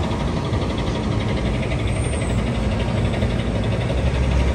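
Steady low hum of an idling engine over a constant street background.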